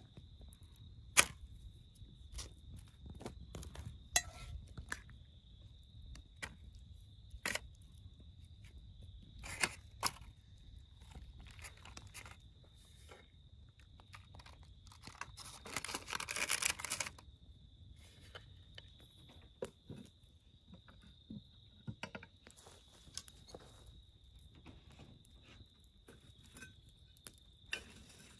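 Quiet, scattered clicks and taps of a glass jar and cooking utensils being handled over a cast-iron Dutch oven, with a rustling burst about 16 seconds in. A steady high-pitched drone sits underneath.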